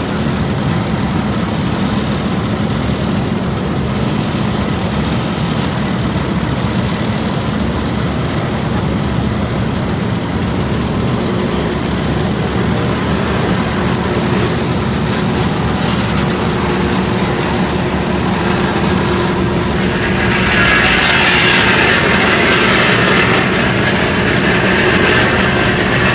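Heavy diesel asphalt-paving machinery running steadily. About three-quarters of the way through, a louder metallic rattling and clattering starts and keeps going.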